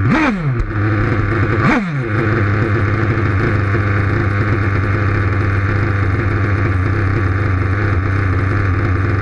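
Kyosho Inferno Neo RC buggy's small nitro engine, heard from right on the car: it revs up and drops back twice in the first two seconds, then idles steadily.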